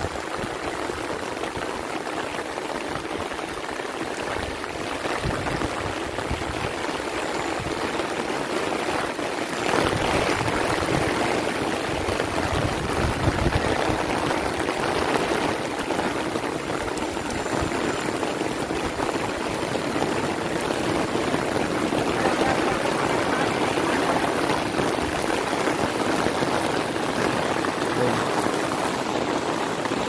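Heavy rain falling on an umbrella held just above the microphone: a steady, dense hiss that gets a little louder about ten seconds in.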